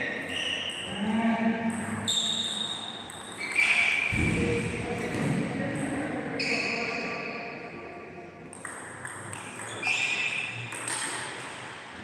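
Table tennis ball being hit back and forth in a rally: repeated short ringing pings of the ball off bats and table. A heavier thud about four seconds in.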